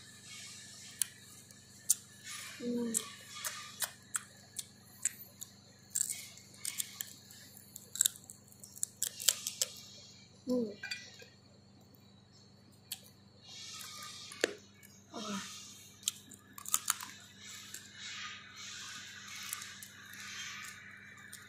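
Close-up eating sounds: chewing and crunching mouthfuls of green banana and fried pork skin, with many sharp smacks and crackles. A few short vocal noises from the eater come between the bites.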